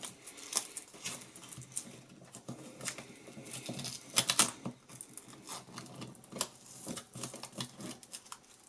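Hands working a thin Velcro strap around small plastic USB devices: irregular clicks, taps and rustling, with a louder cluster about four seconds in.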